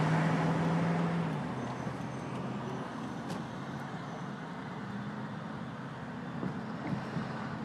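Road traffic running: a steady engine drone for the first second and a half, then a continuous wash of traffic noise.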